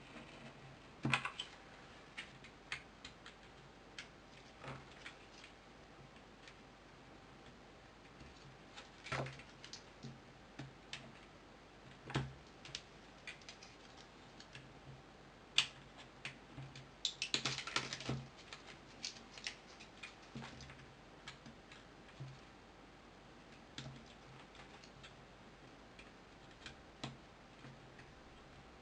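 Scattered small clicks and taps of repair tools and phone parts being handled, with a quick run of clicks about two-thirds of the way through.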